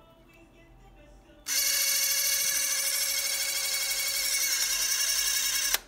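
Spring-wound motor of a Cine Kodak Model B 16 mm movie camera running the film mechanism: a steady, high mechanical whir that starts about a second and a half in and cuts off suddenly near the end.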